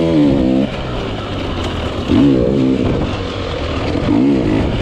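250cc motocross dirt bike engine revving hard and backing off in repeated surges, its pitch climbing and dropping about three times.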